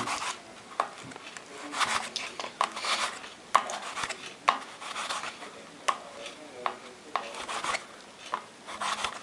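A fork chopping through a clump of tubifex worms on a dish, its tines tapping and scraping against the dish in irregular strokes.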